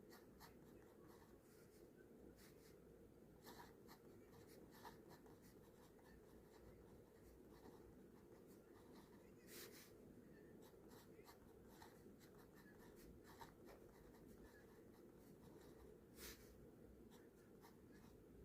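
Faint handwriting: a pen scratching across paper in short, irregular strokes.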